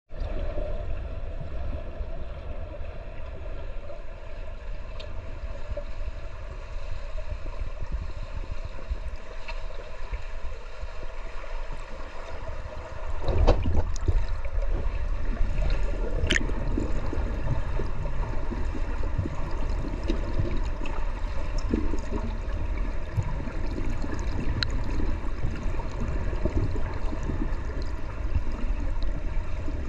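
Underwater sound of a swimming pool picked up by a submerged camera: a steady low rumble of moving water with scattered faint clicks. It becomes louder about thirteen seconds in and stays that way.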